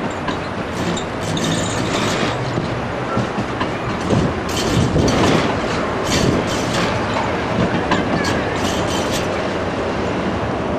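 Siemens-Duewag articulated Sheffield Supertram car passing close on curved track through pointwork, its wheels clicking and clanking over the rail crossings, loudest from about four to seven seconds in.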